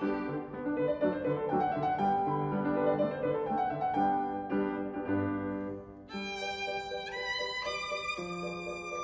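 Solo violin with piano accompaniment. After a brief dip in loudness about six seconds in, the violin comes in on high, held notes.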